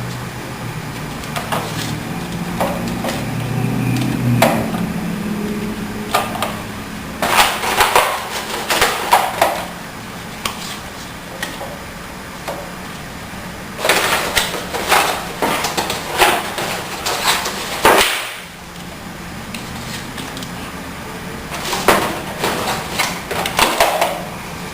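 Hard plastic clicks and knocks from foam darts being pushed into the slots of a toy foam-dart blaster, in three bursts of rapid clicks.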